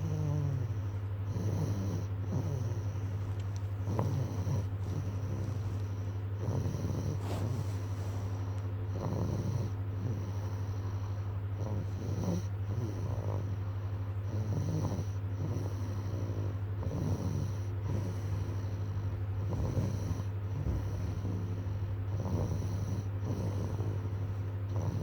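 Snoring, with repeated snores coming about every second or so over a steady low hum.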